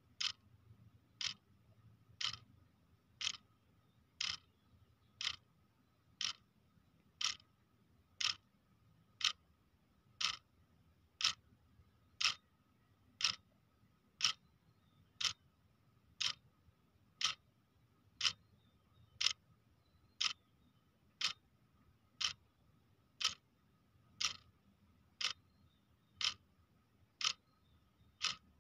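Clock ticking steadily, about one tick a second, each tick a sharp, crisp click, over a faint steady high tone.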